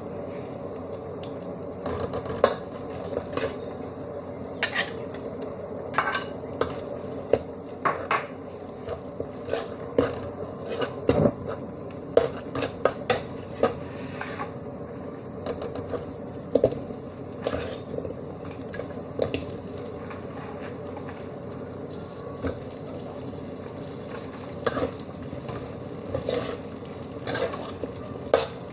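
A metal spatula scraping and clinking against a wok as food is stirred and turned, in irregular strokes over a steady hiss.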